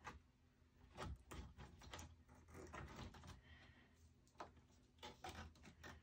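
Faint clicks and taps of parts being handled and fitted back into a rack server, with a few sharper clicks about one, two and four and a half seconds in.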